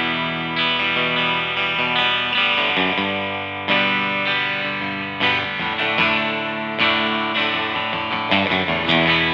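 Harley Benton TE-52 Telecaster-style electric guitar playing chords, struck about a dozen times at an uneven pace, each chord ringing on until the next.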